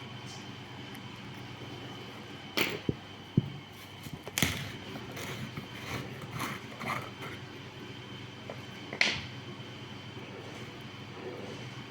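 Scattered knocks and clicks of things being handled, about five in all, over a steady background hum.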